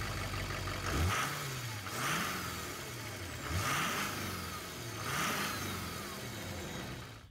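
A vehicle engine revving up and down repeatedly, its pitch rising and falling about four times.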